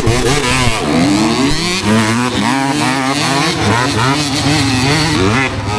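Dirt bike engine revving under throttle on a hill climb, its pitch rising and falling repeatedly.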